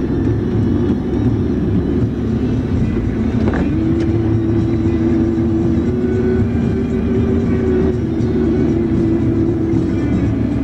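Car engine and road noise heard from inside the cabin while driving at low speed, a steady hum whose engine note steps up in pitch about three and a half seconds in.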